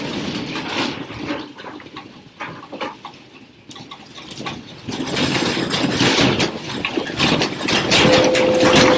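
Rumbling and rattling of a shaking building and its contents during a strong earthquake, growing louder about halfway through. A brief steady tone sounds near the end.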